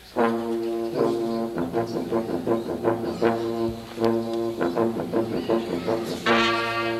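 A youth marching band's brass section, with sousaphones, trumpets and saxophones, starts playing in repeated brass chords with sharp accents. About six seconds in the band comes in louder and fuller.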